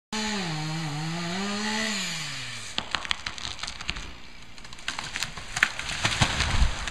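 Two-stroke chainsaw running at high speed, its pitch wavering, then winding down and stopping about three seconds in. A run of sharp cracks and snaps follows, with a heavy thump near the end.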